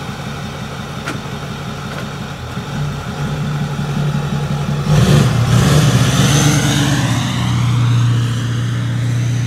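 Straight-piped 6.4-litre Power Stroke V8 diesel of a 2008 Ford F-250, with no DPF, idling with a low, steady note. About five seconds in it gets suddenly louder and climbs in pitch as the truck pulls away, then holds a steady, louder drone.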